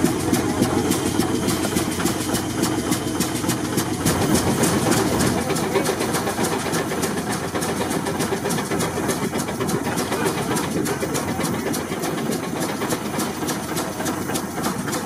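A. D. Baker Uniflow steam traction engine running steadily, its exhaust and valve gear giving a fast, even beat.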